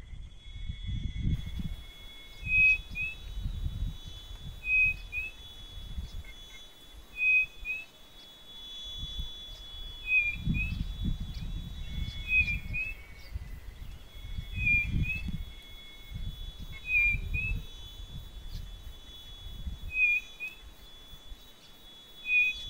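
White-bellied nothura (codorna-do-nordeste) calling: a short, high whistled double note repeated about every two to three seconds, nine times in all.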